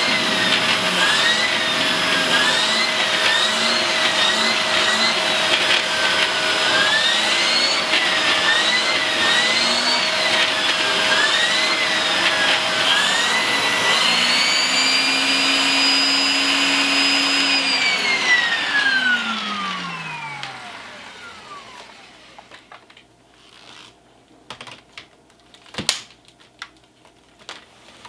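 Shark upright vacuum cleaner running through its hose and wand over bedding. Its motor whine rises and falls about once a second, then holds higher for a few seconds. It is switched off and winds down with a falling whine, followed by a few light clicks near the end.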